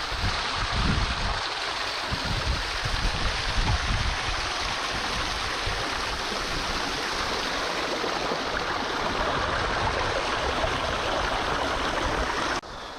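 Flowing creek water making a steady rushing noise, which drops away suddenly near the end.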